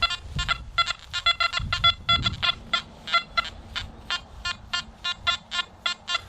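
Geese honking repeatedly in quick succession, a fast run of short calls at about five a second.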